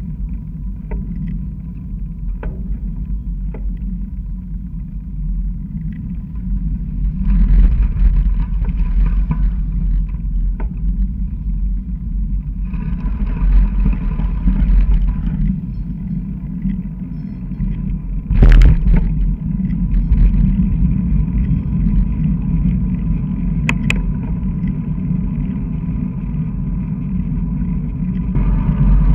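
Wind rumbling over a handlebar-mounted camera on a road bicycle, with cars passing close by twice. Two sharp knocks come later, the louder about two-thirds of the way through.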